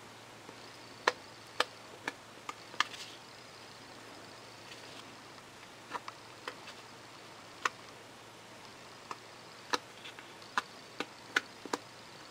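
Plastic spreader working Bondo body filler over a 3D-printed plastic part: faint scraping with a dozen or so sharp, irregular clicks of the spreader against the part, bunched in the first three seconds and again near the end.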